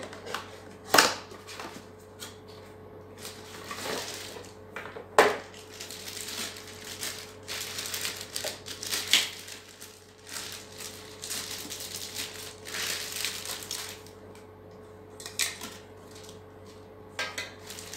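Unboxing: a few sharp knocks and clicks of the cardboard box and its contents being handled, then a long stretch of crinkling as a clear plastic bag is pulled off the pump, with a few short rustles near the end.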